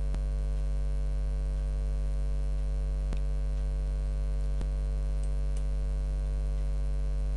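Steady electrical mains hum, a low drone with a buzzy edge, with a few faint clicks.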